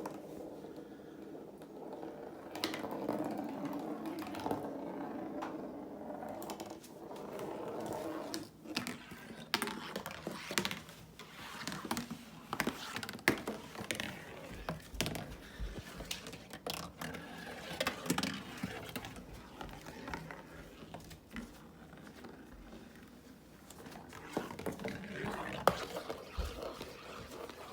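A marble rolling along a homemade marble-run track, with a rolling rumble at first and then many irregular clicks and knocks as it drops down ramps and into paper bowls.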